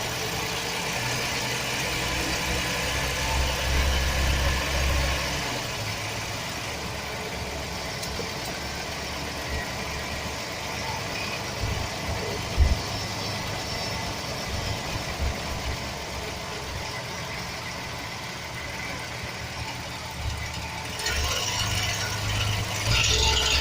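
Chevy 4.3 V6 engine idling with scattered short knocks and rattles, which the owner puts down to a bad starter motor gear bumping against the flexplate. It gets louder near the end.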